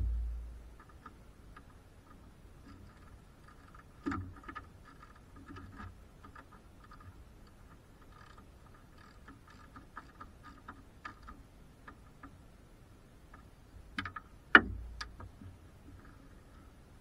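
Ratchet wrench clicking in short irregular runs while working on the car, with small knocks of tools and metal parts. A dull thump at the start and a sharp, loud knock near the end.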